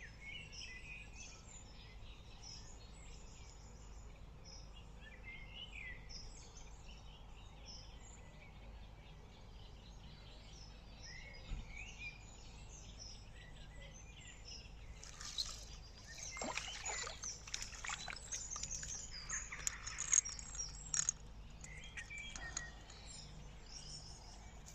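Small birds chirping and singing at the waterside over a quiet outdoor background. About two-thirds of the way through, a few seconds of louder scratchy rustling and clicks come in.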